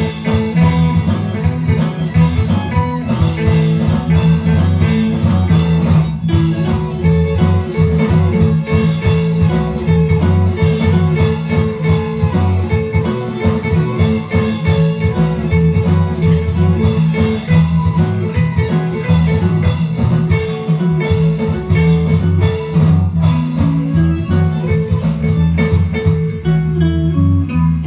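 Small country band playing live, an instrumental passage without vocals: fiddle, acoustic and electric guitars and bass over a steady drum-kit beat.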